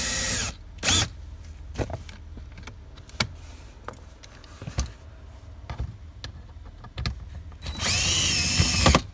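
Small handheld power screwdriver whirring as it backs out T15 Torx screws from a dashboard panel: a short run at the start and a longer run of about a second near the end. Light clicks and knocks of handling fill the gap between.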